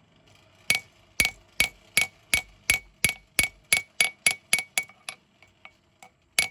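Hand hammer striking hot steel on an anvil to draw out a knife's tang: a steady run of blows about three a second, speeding up slightly, each with a bright anvil ring. The blows lighten to a few soft taps, then heavy strikes resume near the end.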